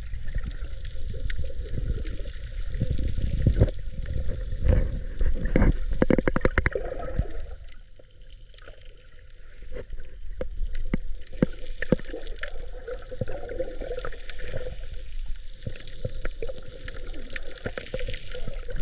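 Seawater sloshing and gurgling, with many scattered clicks and pops over a low rumble and a hiss. It is loudest from about four to seven seconds in and drops briefly about eight seconds in.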